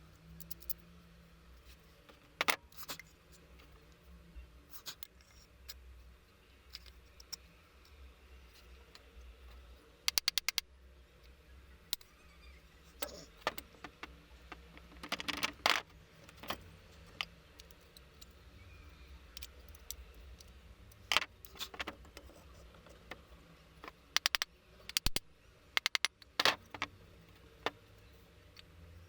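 Scattered clicks, taps and short scrapes of small hard parts being handled and worked by hand. Quick runs of clattering clicks come about ten seconds in and again twice near the end.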